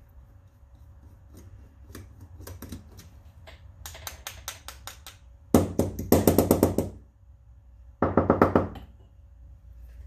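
A small generator carburetor body is rapped against the bench in three bursts of rapid knocks to shake the emulsion tube out. Before that come a few light clicks of a screwdriver working in the main-jet bore.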